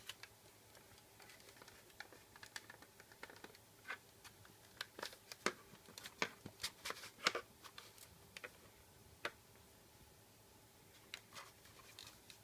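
Faint scattered clicks and taps from the LED flashlight's parts being handled, with a quick run of sharper clicks in the middle.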